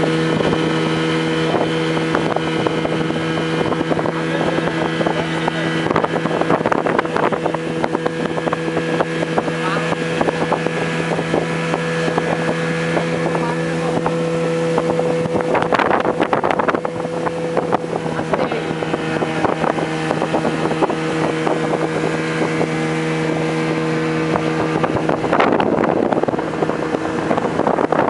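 Speedboat engine running steadily at one pitch while under way, with wind buffeting the microphone in gusts midway and near the end.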